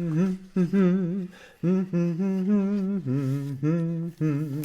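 A man humming a tune with closed lips, in a string of held notes with short breaks between them. It stands for a bulldozer's motor humming a holiday song.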